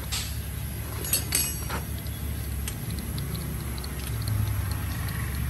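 Hand lever grease gun being worked on a wheel-hub grease nipple, giving a few sharp metallic clicks at the start and about a second in. A steady low rumble runs underneath.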